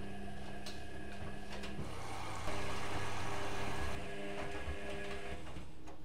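Candy GrandÓ GO145 front-loading washing machine tumbling wet laundry in its main wash: a steady motor hum that stops just before two seconds in, then a rush of water and wet laundry splashing in the drum, loudest for a second and a half in the middle.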